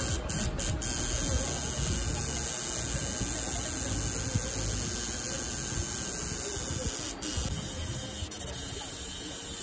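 Electric tattoo machine buzzing steadily, cutting out briefly a few times in the first second and once about seven seconds in.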